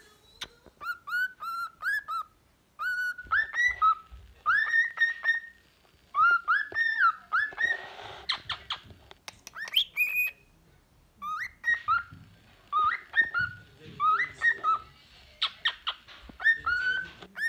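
Cockatiel singing a varied whistled song of short, mostly upward-gliding phrases, broken by pauses. About eight seconds in there is a harsher, scratchier stretch.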